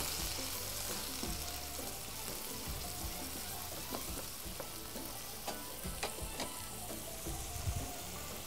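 Onions sizzling as they fry in oil in a frying pan, stirred with a spoon that taps and scrapes against the pan now and then.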